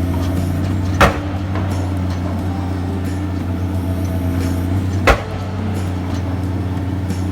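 A diesel engine of construction machinery running with a steady low drone. Two sharp knocks sound over it, about a second in and again about four seconds later.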